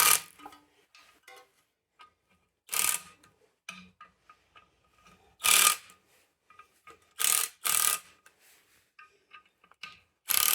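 Socket ratchet clicking in short bursts, about five or six, as the clutch pressure-plate bolts are run in and snugged before torquing.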